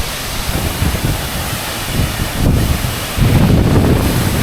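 Large waterfall pouring, a steady loud rush with wind buffeting the microphone; it grows louder about three seconds in.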